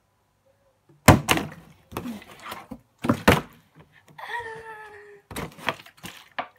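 Plastic water bottle thunking hard onto a countertop as it is flipped and fails to land upright, a series of sharp knocks starting about a second in. A child's drawn-out exclamation comes between the knocks, near the middle.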